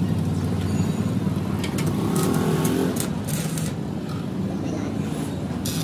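A motor vehicle engine running close by: a steady low rumble that eases off slightly partway through.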